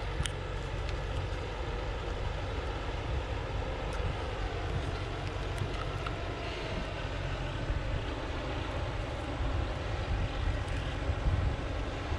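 Distant loaded log truck's engine droning steadily under load as it climbs a dirt hill road, growing slightly louder near the end as it approaches.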